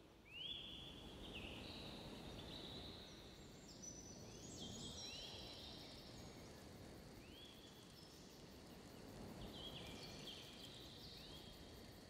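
Faint dusk countryside ambience: a low steady hiss with many short whistled bird calls, each rising quickly then holding, overlapping one another.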